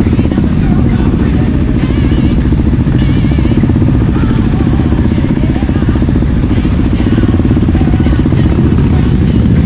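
Motorcycle engine running steadily under way, loud and dense, with music mixed over it.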